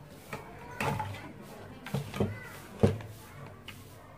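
A few light knocks and clicks from a hand tool and hands working on a CRT television's circuit board, the sharpest about three seconds in.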